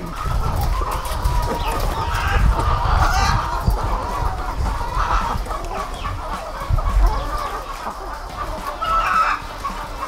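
A flock of caged white laying hens clucking and squawking, many calls overlapping continuously, over a low rumble.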